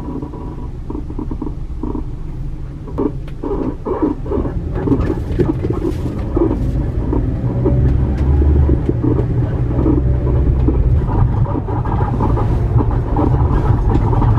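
Rear leaf spring helper leaf of a camper van creaking and squeaking in short, uneven strokes as the suspension works. The creak is the recurring abnormal noise from the helper leaf, back after an earlier countermeasure part. Under it is the low rumble of the van driving, which grows louder about halfway through.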